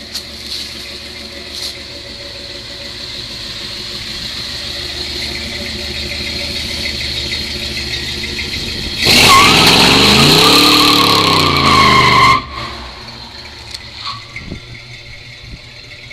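1963 Chevrolet Impala Super Sport engine running and slowly getting louder as the car pulls away. About nine seconds in, the engine revs up and back down while the tyres squeal in a burnout for about three seconds, which stops abruptly. The engine then runs on more quietly.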